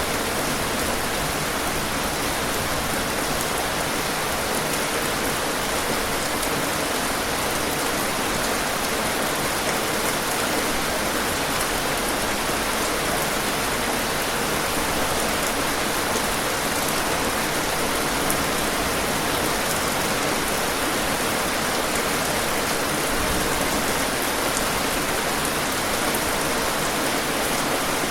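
Steady rain falling, an even hiss of many drops with faint ticks of individual raindrops on a surface.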